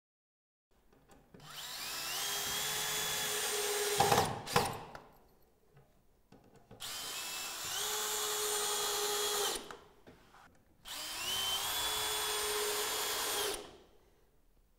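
DeWalt cordless drill driver driving screws back into timber roof battens, in three runs of about three seconds each. Each run rises in pitch as the motor spins up and then holds steady, and a couple of sharp knocks come near the end of the first.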